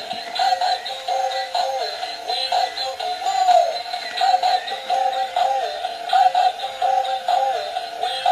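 Music: an electronic melody with a short phrase that repeats about every two seconds.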